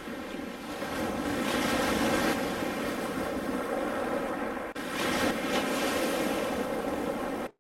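Steady rushing, wind-like noise with a brief dip a little over halfway through, cutting off abruptly near the end.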